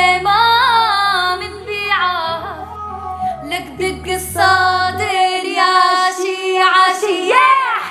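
A girl singing an Arabic song in long, ornamented held notes with strong vibrato, over a low sustained accompaniment that drops away about five seconds in; near the end her voice swoops up and back down.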